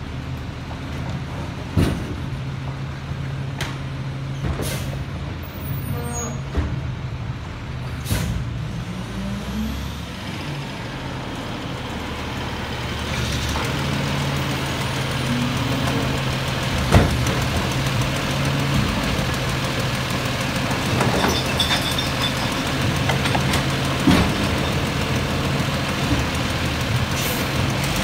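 Diesel engine of a Peterbilt 320 garbage truck with a McNeilus automated side-loader body running, with several sharp metallic clanks. About halfway through it grows louder and busier as the truck works.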